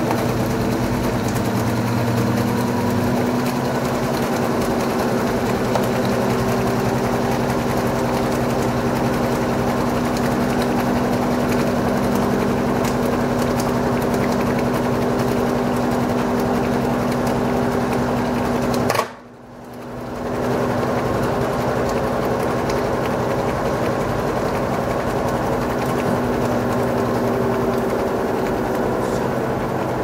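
LG Direct Drive washing machine drum turning, a steady motor hum with several steady tones. About two-thirds of the way through, the sound cuts out suddenly for about a second and then returns.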